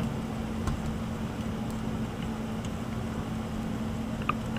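Steady low hum of room background noise, with a few faint light clicks of small metal parts as the Magpul trigger guard's retaining screw is twisted in by hand on an AR-15 lower, the slightly louder pair near the end.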